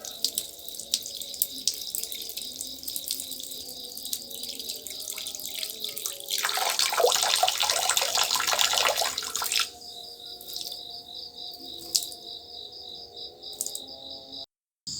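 A person urinating: a thin trickle with small splashes, then a heavier, louder stream from about six seconds in for roughly three seconds, which tails off to a light dribble. Insects chirp steadily in the background, and the sound cuts out briefly near the end.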